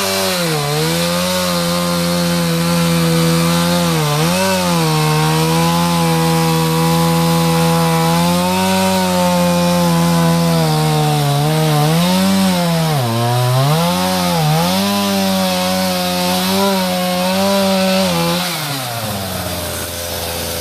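A small two-stroke chainsaw runs at full throttle while cutting into a tree trunk too big for it. Its pitch sags under load and dips several times as the chain bogs in the wood. About 18 seconds in the throttle is released and the engine falls to idle.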